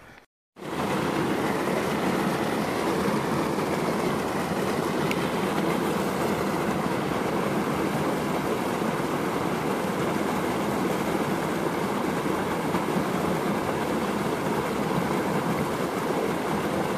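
Steady rush of a small mountain stream spilling over rocks in a little cascade, heard close up. It starts abruptly about half a second in.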